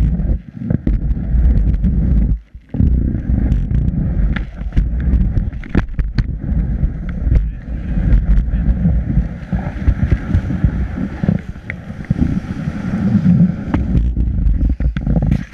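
Skis sliding and scraping over packed snow, heard from a camera mounted low on a ski boot, with a dense low rumble and frequent small knocks and clicks. The sound drops out briefly about two seconds in.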